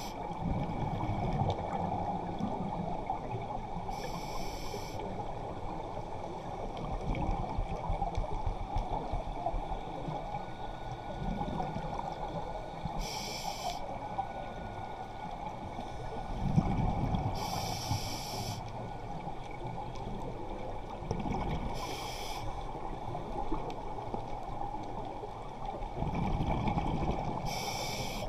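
Scuba diver breathing through a regulator underwater: short hissing bursts of exhaled bubbles about five times, several seconds apart, over a steady underwater rumble.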